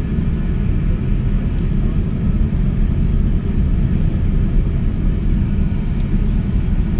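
Steady low rumble inside the cabin of an Airbus A350 taxiing after landing: engine and rolling noise with no breaks.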